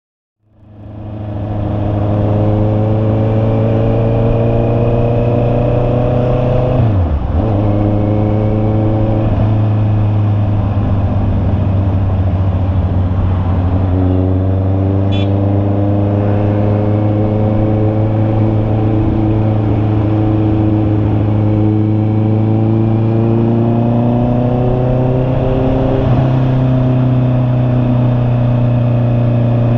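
Honda CB650R's inline-four engine running under way, its note climbing slowly and then dropping sharply about seven seconds in, as at a gear change. It fades in over the first second.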